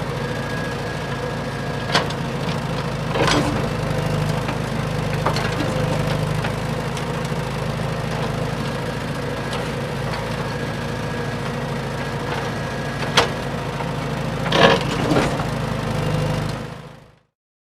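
Large excavator's engine running steadily, with sharp cracks and snaps breaking in several times, the loudest a cluster near the end. The sound then fades out.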